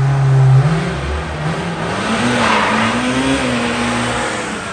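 BMW engine revving up hard, its pitch climbing over the first few seconds, with the hiss of a spinning tyre. Only one wheel breaks loose, the sign of an open differential that hasn't been welded.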